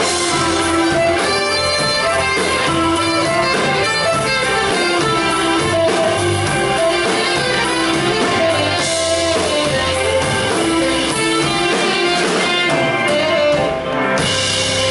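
Live blues-rock band playing: electric guitar, saxophone and drum kit together over a steady groove.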